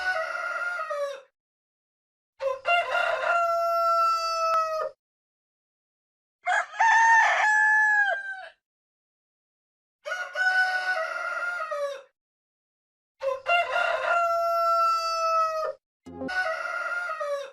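Rooster crowing cock-a-doodle-doo six times, each crow about two seconds long, the first already under way at the start, with dead silence of a second or so between crows. One crow near the middle is pitched higher than the rest.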